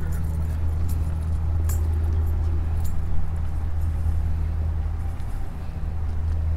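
An engine running steadily with a low, even hum, with scattered light clicks and rattles over it.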